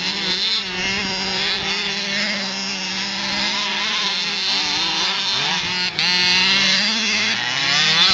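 Several HPI Baja 1/5-scale RC buggies' small two-stroke petrol engines buzzing and revving, their pitches rising and falling as they are driven. From about six seconds in, one closer engine is louder.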